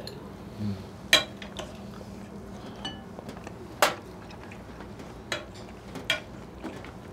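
Cutlery and dishes clinking at a meal table: a few separate sharp clinks, the loudest about a second in and near four seconds in, with smaller ones later, over a low steady hum.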